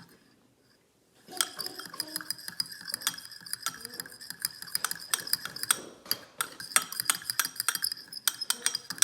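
A utensil stirring melted chocolate in a bowl, clinking rapidly and repeatedly against the bowl's side with a ringing tone, starting about a second in.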